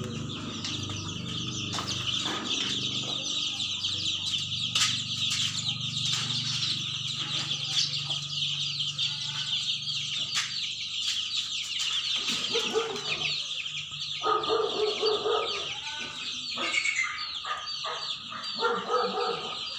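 A flock of chicks cheeping continuously in a dense, high-pitched chorus. From about twelve seconds in, louder and lower clucking calls join in.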